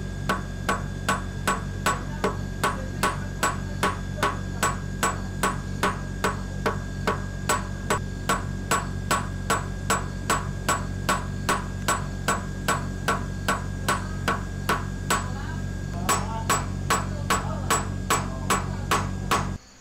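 Small hammer striking a thin silver leaf on a polished steel stake in a steady rhythm, about two to three light strikes a second, each with a short metallic ring, texturing the leaf's surface. A steady low hum runs underneath.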